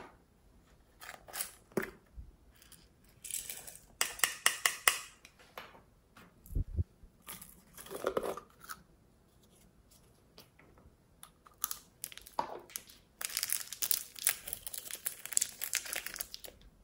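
Small plastic containers handled and opened over a slime bowl: scattered clicks, lid twists and crinkling, with a low knock near the middle. Near the end comes a long dense crackle as sprinkles are shaken out onto the slime.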